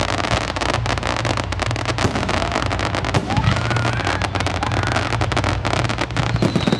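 Fireworks going off in a dense, continuous run of sharp cracks and pops.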